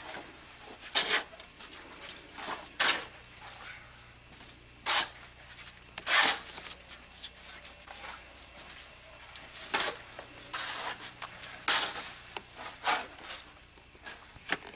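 Snow shovel scraping and scooping through heavy snow, a short scrape every second or two at an uneven pace.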